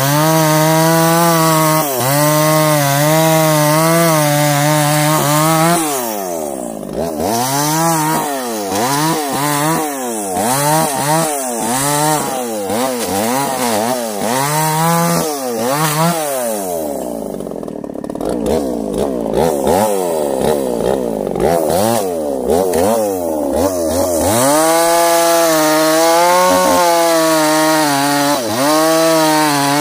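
Two-stroke chainsaw cutting through felled sengon logs. It holds at full throttle in the cut, then for about ten seconds revs rise and fall roughly once a second, drops to lower revs for a while, and goes back to steady full throttle in a new cut near the end.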